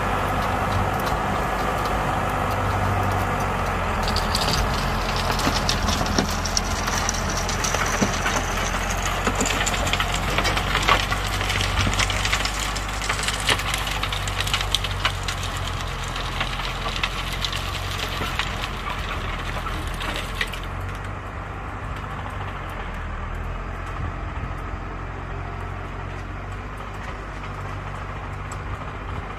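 Tractor engine running under load while its PTO-driven rotary tiller churns the soil, with a dense crackle of clods and stones striking the tines and a high whine rising in pitch a few seconds in. About twenty seconds in, the crackle and high end fade and the sound dulls as the tractor moves away.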